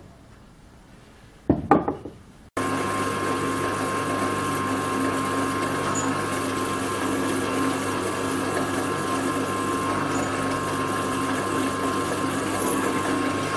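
Bench drill press running steadily as its twist drill bores a hole into a medium-carbon steel bar, a constant machine hum with several steady tones that starts abruptly about two and a half seconds in. Before it, a brief loud noise about a second and a half in.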